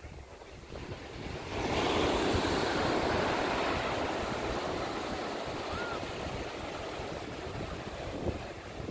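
Ocean surf on a sandy beach: a wave breaks about a second and a half in and its wash runs on, slowly fading, with wind buffeting the microphone.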